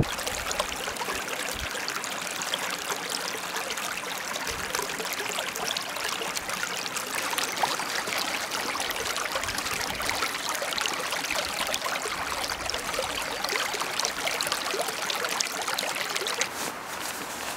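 Shallow mountain stream running and trickling over pebbles and around rocks, a steady babble of many small splashes that eases off slightly near the end.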